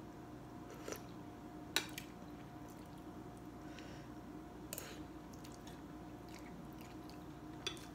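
A person eating noodle soup with chopsticks and a spoon: faint chewing, with four short sharp clicks spread through, over a steady low hum.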